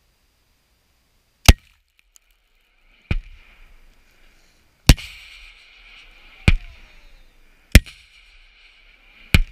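Single gunshots from rifles fired in deliberate succession, six in all, about a second and a half apart, several followed by a short rolling echo.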